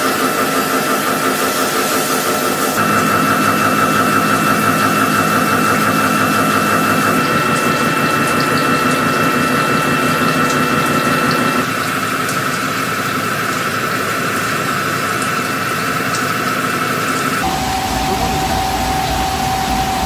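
Machine tool running with a steady high whine over a hiss. The sound changes abruptly about three seconds in, near the middle and again near the end, each time to a different machine sound; near the end there is a lower whine with a deep rumble.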